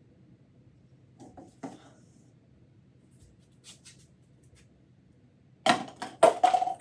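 Faint taps as a paper cup is set on a plastic bin, then, near the end, a quick run of sharp clattering hits with a short ring as a thrown ping-pong ball strikes the cup and bin rim and knocks the cup over; the ball bounces out.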